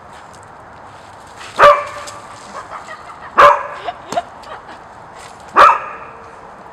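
Blue merle Australian Shepherd puppy barking: three loud single barks about two seconds apart, with a few fainter short sounds between them.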